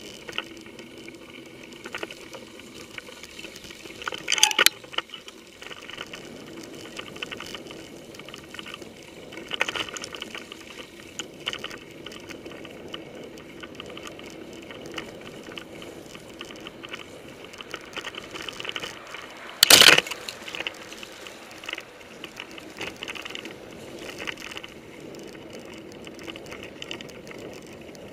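Mountain bike riding over a rough dirt forest track, heard up at the handlebars: steady rolling and drivetrain noise, frequent small clicks and rattles as the bike jolts, and two loud knocks from bumps, one about four seconds in and one near twenty seconds.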